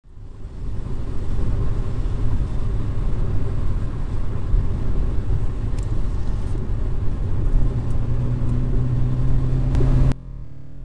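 Car engine and road noise heard from inside the cabin while driving at motorway speed: a steady low drone that fades in at the start and drops away suddenly near the end.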